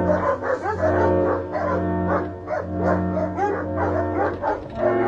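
Background music with steady low held notes, with a dog's short yips and whimpers, several a second, over it.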